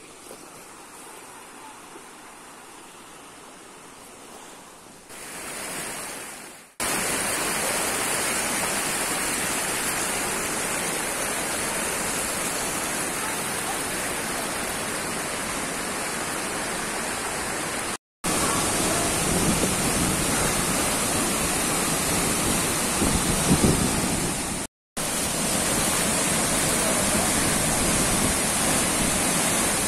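Steady, loud rush of a tall waterfall plunging into a pool. It comes in suddenly about seven seconds in, after a quieter stretch.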